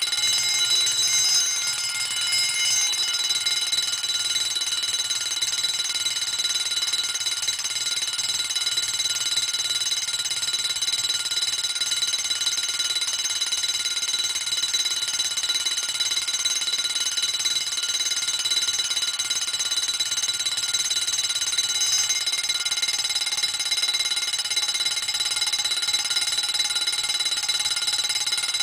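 Emdeko model 115-A wind-up heat-detector fire alarm bell, a 6½-inch gong, ringing steadily without a break, a loud bright metallic ring.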